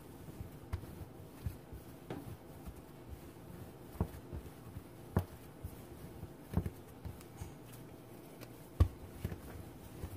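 Hand-kneading soft, still-tacky flour tortilla dough on a countertop: irregular soft thumps and knocks as the dough is pressed down, folded and turned, the loudest a little before the end.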